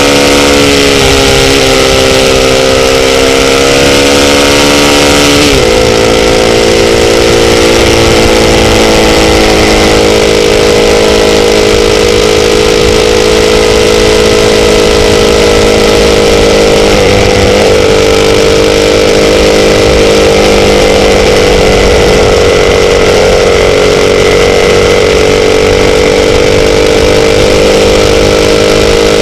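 Motorcycle engine running steadily at speed, loud and close, over a steady rush of noise. The engine note drops suddenly twice, about five seconds in and again about seventeen seconds in, then settles and runs on.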